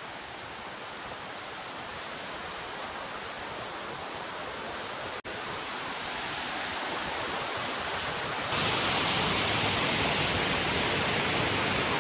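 Steady rush of water falling in a waterfall, slowly growing louder, with a momentary gap about five seconds in and a sudden jump in loudness about eight and a half seconds in.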